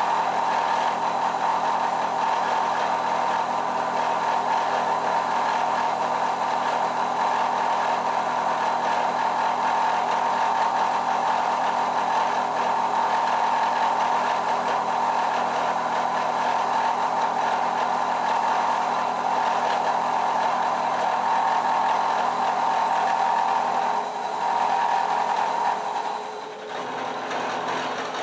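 Face mill on a milling machine cutting across a metal block: a steady mid-pitched machining drone. About 24 s in the sound weakens and dips for a couple of seconds, then picks up again just before the end.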